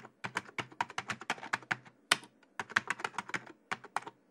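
Typing sound effect: a quick, uneven run of key clicks, about six a second, with one louder click and a short pause just after two seconds in.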